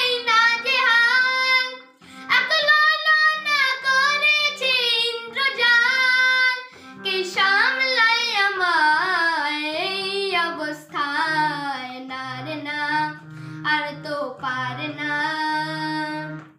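A boy singing a Bengali song solo, with long, wavering held notes.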